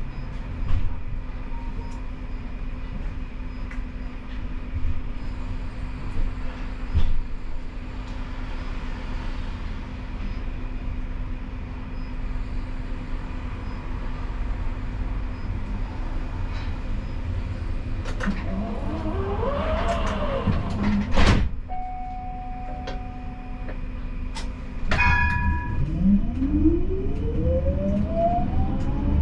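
Siemens Combino tram running, with a steady low hum and scattered knocks from the wheels on the track, one of them loud about two-thirds of the way through. Its electric traction motors give a whine that rises and falls mid-way, and near the end a whine that climbs steadily in pitch as the tram pulls away and accelerates.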